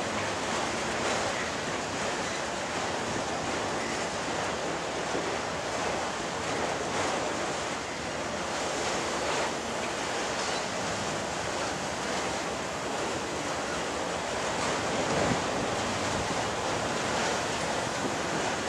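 Long freight train of autorack cars rolling past on the rails: a steady rushing noise of wheels and cars with no distinct clanks or horn.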